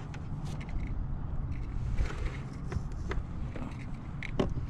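Scattered knocks, clicks and scrapes of gear being handled on a fishing kayak over a low, steady rumble, with a sharper knock near the end.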